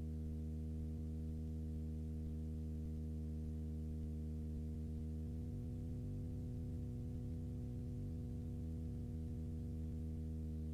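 Super Petrel amphibian's piston engine and propeller giving a steady, low, muffled drone of layered tones while the plane taxis on the lake. About halfway through, the pitch rises slightly.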